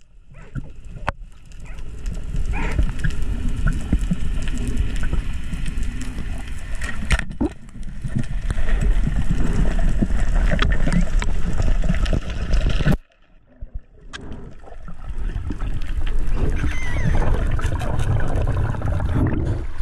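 Muffled underwater noise through a camera's waterproof housing: a steady low rush of water moving past the camera as the diver swims, with scattered sharp clicks. It cuts out for about a second roughly two-thirds of the way through, then returns.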